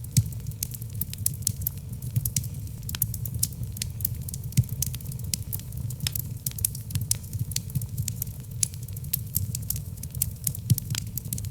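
Wood logs burning in a fireplace: a dense run of sharp crackles and pops, several a second, over a low steady rumble of the flames. There is a louder pop just after the start and another near the end.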